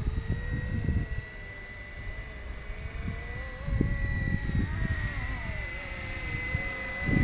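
470-size BO 105 radio-controlled scale helicopter flying, with a steady high whine and a lower rotor drone that wavers in pitch. Gusty wind rumbles on the microphone underneath.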